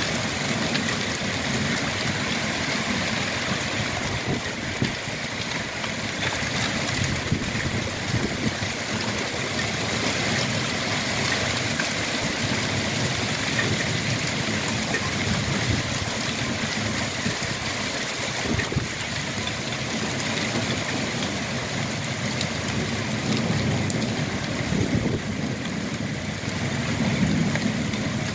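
Heavy rain falling in a storm: a steady hiss of downpour with water pouring off the roof, and gusts of wind rumbling on the microphone at times, strongest near the end.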